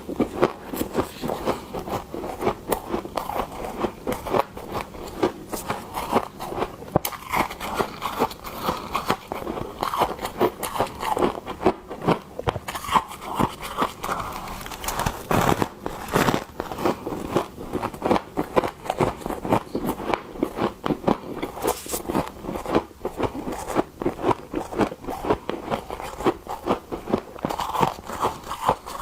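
Frost crunching and scraping as it is scooped, in a fast, irregular run of crisp crunches.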